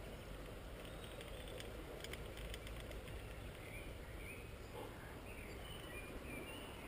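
Steady outdoor rushing noise of wind and the fast, flooded river, with a brief run of quick clicks about two seconds in. A few short bird chirps follow in the second half.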